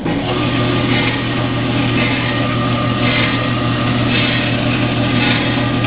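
Jet 8x13 horizontal metal-cutting band saw starting up and running free, its 1.5 hp electric motor and belt drive humming steadily at the middle of four speeds. A higher hiss swells about once a second.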